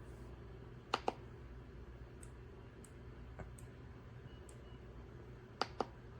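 Two sharp double clicks from a Royal Kludge S98 mechanical keyboard with pale green tactile switches, one about a second in and one near the end, with a few faint ticks between, over a steady low hum.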